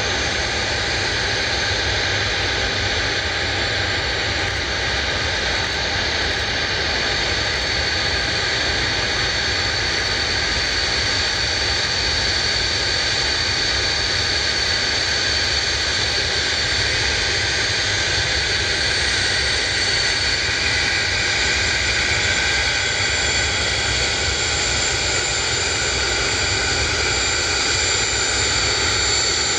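Avro RJ100's four Honeywell LF507 turbofans running at taxi power: a steady jet whine with two high, even whistling tones over a broad rumble.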